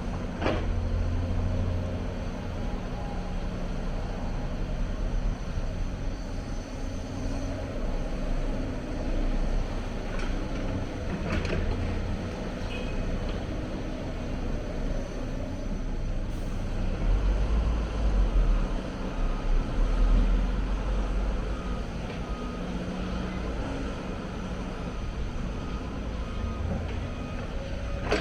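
Hyundai 290 crawler excavator's diesel engine running and working under load, its pitch swelling now and then as the hydraulics are worked, with a few sharp knocks.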